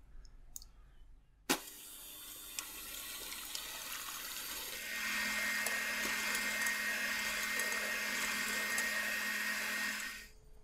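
Electric mixer running in a bowl: switched on with a click, stepped up to a louder, higher setting about halfway through, then switched off just before the end.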